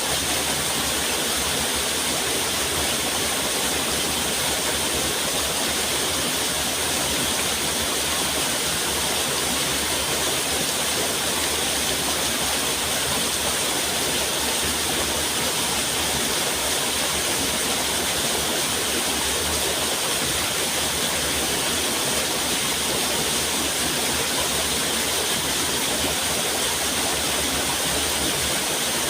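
Steady rush of running water, an even hiss that never changes in level.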